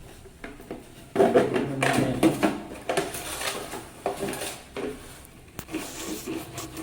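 A sharp knife cutting through a flat plastic bottle: irregular crackling and scraping of the plastic, busiest in the first half, with a sharp click about five and a half seconds in.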